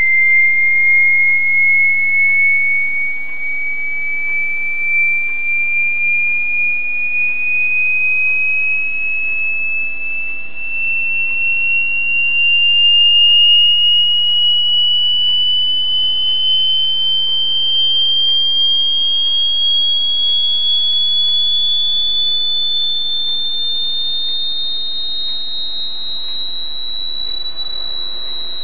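A pure electronic sine-wave test tone sweeping slowly and steadily upward in pitch, high and whistle-like. From about halfway a fainter second tone glides downward to meet it near the end, over a faint hiss.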